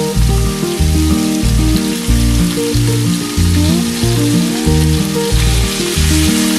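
Minced pork sizzling as it fries in sesame oil in a frying pan, a steady hiss. Background music with a steady beat plays over it and is the loudest sound.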